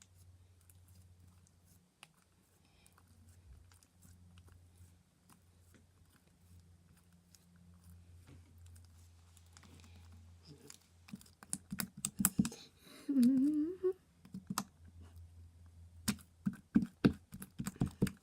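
Soft slime being squished and played with by hand, near-quiet at first, then a run of sharp sticky clicks and pops in the second half, with one short low pitched squelch around thirteen seconds in. A low steady electrical hum runs underneath.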